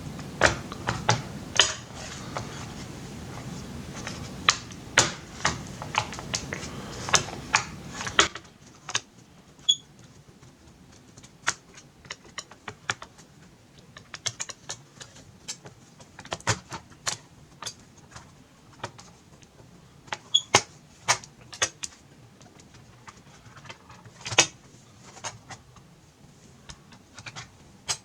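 Knife prying open a plastic laptop case: irregular sharp clicks and snaps of plastic as the case's clips give. A steady background hiss cuts off about eight seconds in.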